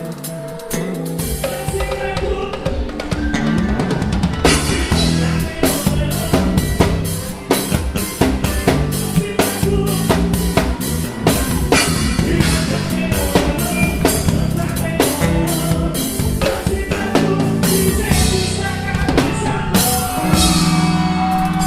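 Drum kit played with a band in a gospel praise song: steady kick and snare hits with cymbals over bass and held chords, and a cymbal crash with a sustained chord near the end.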